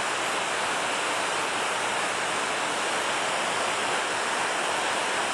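Steady rushing of river water: an even hiss with no distinct events.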